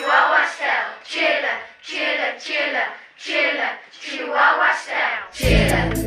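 Group of children's voices chanting in a steady rhythm, about two beats a second, as the intro of a class rap; a music backing track with bass and drums comes in near the end.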